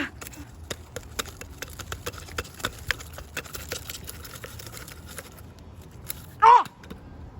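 Scattered light clicks and taps, a few a second, from toys being handled and knocked together, over a low hum; a short vocal cry falling in pitch comes about six and a half seconds in.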